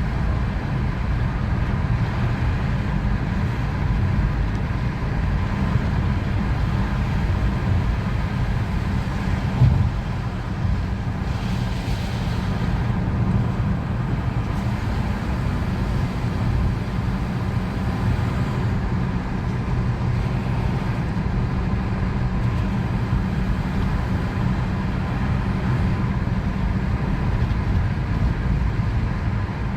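Steady road and engine rumble heard from inside a moving car's cabin, with a brief hiss rising and fading about twelve seconds in.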